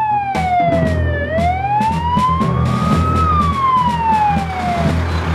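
Dennis fire engine's siren wailing, its pitch falling, rising and falling again about every two seconds, over the low, steady rumble of the engine.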